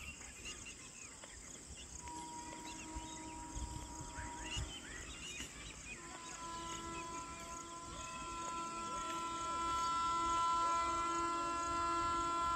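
Birds chirping, then the horn of an approaching WAP-4 electric locomotive: a short blast about two seconds in, then a long held blast from about six seconds that grows louder as the train nears.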